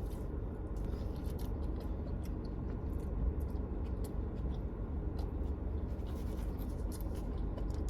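Light scratching and rustling as takeout food packaging is handled, with scattered small clicks, over a low steady hum inside a car.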